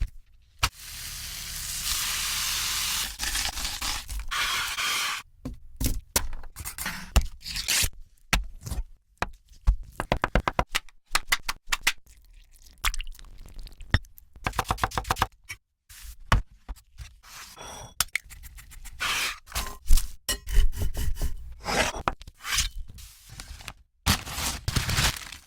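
Crunchy eating and food-handling sounds: a steady crackling hiss in the first few seconds, then a long run of sharp cracks, crunches and scrapes, some in quick rhythmic runs.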